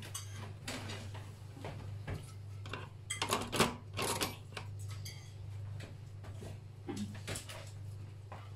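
Forks clinking and scraping on dinner plates during a meal, with the loudest clinks about three to four seconds in, over a steady low hum.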